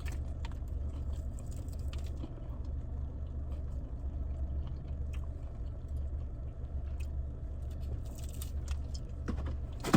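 A person biting into and chewing crispy-skinned chicken, with faint scattered crunches over a steady low hum.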